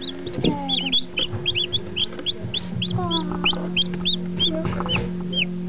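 Newly hatched and hatching chicks peeping: a rapid string of short, high cheeps, several a second, over a steady low hum.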